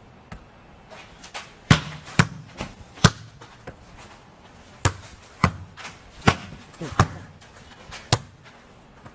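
A volleyball being struck by hand during a rally: about eight sharp smacks, irregularly spaced roughly half a second to a second apart.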